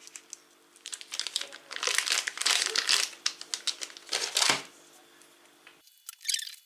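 Plastic wrapping of a pack of sliced processed cheese crinkling as it is handled and slices are pulled out, in a few irregular bursts, loudest in the middle.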